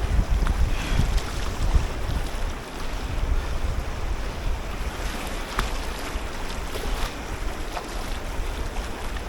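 River water rushing and splashing around a kayak on the Río Maipo, with wind rumbling on the microphone.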